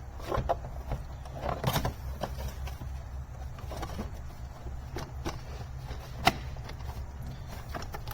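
Scattered clicks and knocks of engine-bay parts being handled and fitted back in place, with one sharper click about six seconds in, over a low steady hum.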